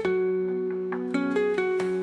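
Background music: plucked acoustic guitar or ukulele picking a melody over a held low note.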